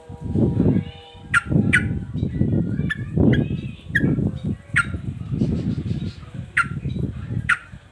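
Male yellow-vented bulbul (trucukan) giving short, sharp, falling calls about once a second in an excited state. Under the calls there is a repeated low rumbling noise.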